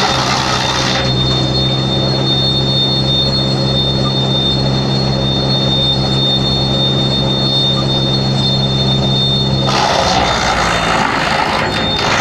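Wood crusher (wood chipper shredder) machine running with a steady hum and a high whine; about ten seconds in, a loud grinding rush as wood is fed through and shredded.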